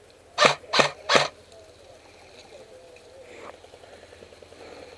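Three shots from an M16-style airsoft rifle fired in quick single shots, about a third of a second apart, in the first second and a half; each is a short sharp crack.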